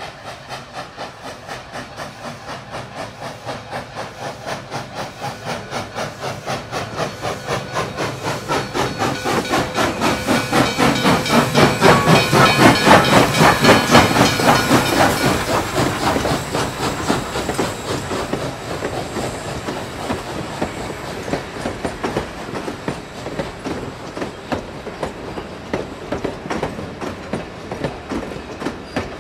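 A train's wheels clattering over the rail joints in a steady rhythm, swelling to a peak about halfway through and then fading, as a passing train would. It is most likely a recorded train sound effect.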